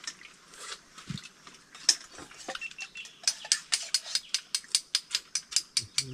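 Metal utensils clicking against dishes: scattered clicks at first, then from about three seconds in a steady run of sharp clicks, about five a second.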